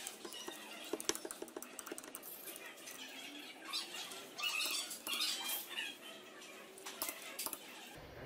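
Irregular metallic clicks and scraping from a socket wrench being worked on the connecting-rod cap bolts of an engine crankshaft, as the rod caps are fitted during piston installation.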